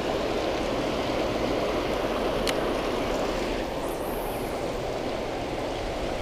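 Steady rush of water pouring over a spillway, with a faint click about two and a half seconds in.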